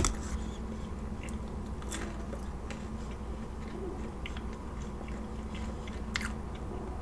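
Close-up mouth sounds of chewing a bite of a Wendy's Junior Bacon Cheeseburger, with soft wet smacks and a few small crunchy clicks.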